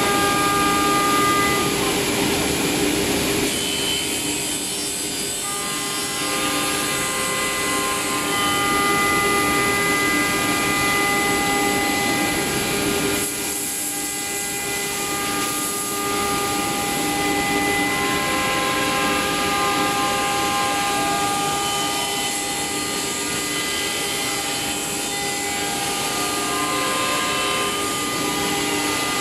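CF-DZ1625ATC1 CNC wood router's spindle cutting a ring out of a wooden panel. The high whine is made of several tones that shift every few seconds as the cut goes round, over a steady rushing noise from the cutting.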